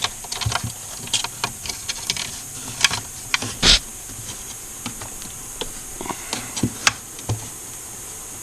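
Irregular small clicks and taps of plastic parts and wires being handled and fitted inside a ventilation unit, with one louder knock about three and a half seconds in, over a steady faint hiss.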